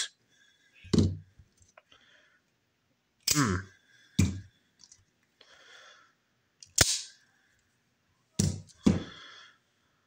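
Knives being handled and set down one by one on a gun-cleaning mat: about six separate knocks and clacks a second or two apart, the sharpest a crisp snap about seven seconds in, with faint rustling between.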